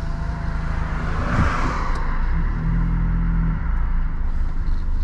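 Car engine and road noise heard inside the cabin while driving: a steady low rumble, with a brief hiss about a second and a half in.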